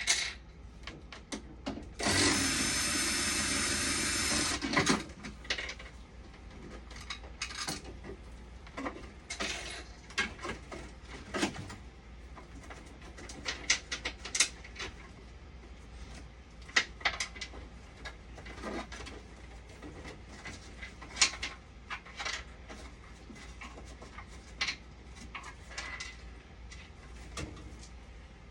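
A small power tool runs for about two and a half seconds a couple of seconds in, then scattered clicks, taps and knocks of small parts and hand tools being handled.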